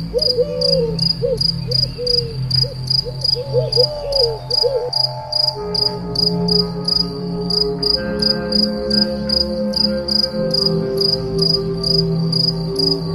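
A cricket chirping in rapid, even pulses, layered with background music: short gliding notes for the first five seconds, then held chords.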